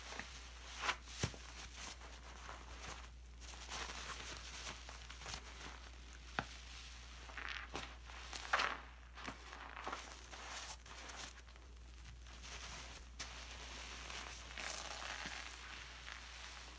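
A sponge squeezed and kneaded by hand in thick dish-detergent lather: wet squelching and crackling of the foam, with a few sharp clicks.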